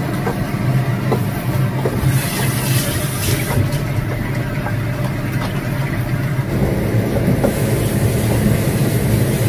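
Steady low hum of a kitchen range hood fan. A tap runs and splashes into a stainless-steel sink, briefly about two seconds in and again near the end, with a few light clinks of a plate being washed.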